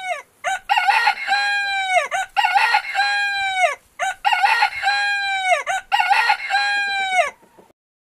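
Rooster crowing cock-a-doodle-doo, about five crows in quick succession, each ending in a falling pitch.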